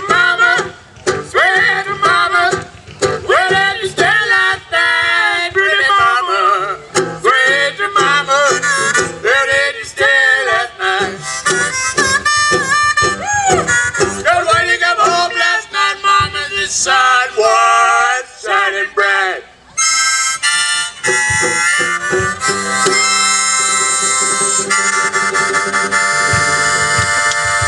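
Old-time string-and-horn music: a reedy lead melody with bent, sliding notes over banjo and a homemade brass pipe horn. It closes on a long held chord over the last several seconds.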